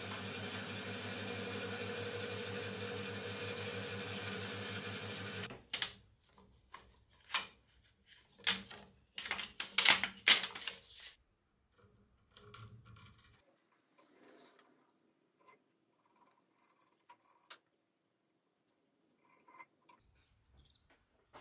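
Bandsaw running as a hardwood blank is fed through it, the sound cutting off abruptly about five seconds in. Then thin sawn wooden slats clatter and knock against each other and the metal saw table as they are handled, loudest near the middle, followed by faint rubbing and light taps.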